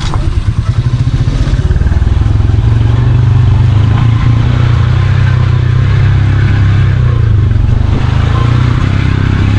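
Motorcycle engine running as the bike climbs a rutted dirt trail. It builds over the first couple of seconds, then holds a steady rumble.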